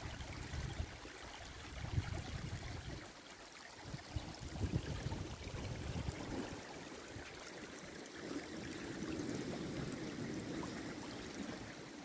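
Shallow snowmelt water trickling and running over beach pebbles, a steady gentle rush with occasional low rumbles.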